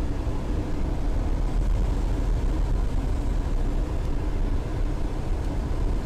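Cockpit noise of a Eurofox microlight gliding on final approach with the throttle fully closed: the engine idling under a steady rush of air, heard through the headset intercom.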